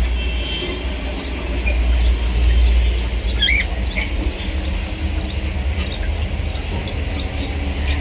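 A few short budgerigar chirps about three and a half to four seconds in, over a loud steady low rumble.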